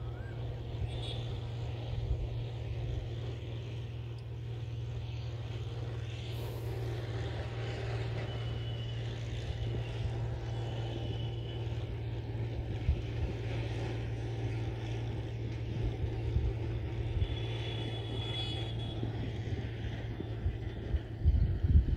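Steady low drone of a boat engine running throughout, with irregular low bumps growing louder near the end.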